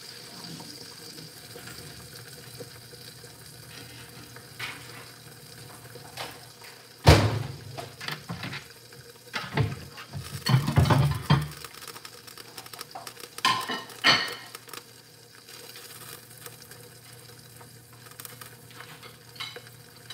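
Kitchen clatter of plates, pans and utensils: a sharp knock about seven seconds in, a busy run of clinks and scrapes a few seconds later, and two more knocks soon after. Underneath is a faint steady sizzle of food frying on the stove.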